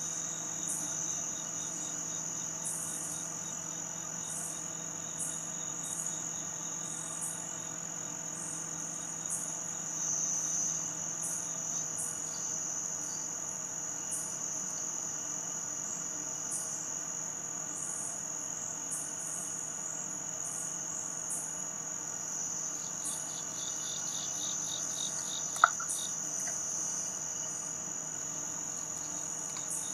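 Night insect chorus: a steady high-pitched trill with short chirps repeating above it. A faster pulsed trill joins in about two-thirds of the way through, and there is one sharp click near the end.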